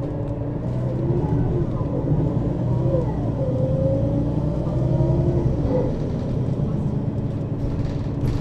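Mercedes-Benz Citaro city bus driving, heard from inside over the second axle: engine and ZF Ecomat 2 6HP-592 C automatic gearbox whine rising in pitch as it accelerates, dropping at a gear change about three seconds in and again just before six seconds, over a steady low rumble.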